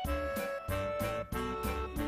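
Instrumental background music with a steady beat and held melodic notes.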